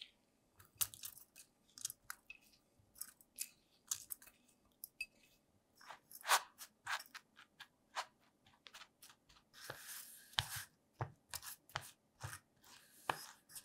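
Silicone spatula scraping and pushing buttered crushed biscuit crumbs around inside an aluminium cake tin: faint scattered scrapes and taps, with a longer rustling scrape about ten seconds in.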